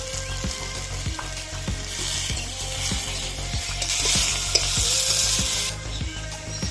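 Food frying in hot oil in a pan, a steady sizzle that grows louder from about two seconds in and drops back shortly before the end, with light clicks of stirring.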